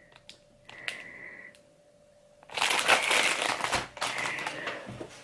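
Crinkling of a plastic cookie packet being handled, a dense rustle that starts about halfway through and lasts some two and a half seconds, after a few faint clicks.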